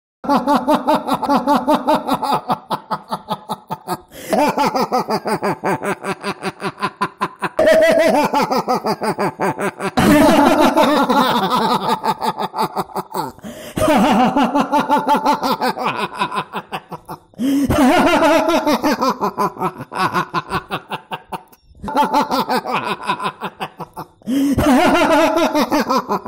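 A man's villainous laugh, the demon Mahishasura's laugh: loud 'ha-ha-ha' pulses at about five a second, in bouts of two to four seconds that each fall in pitch, repeated about eight times.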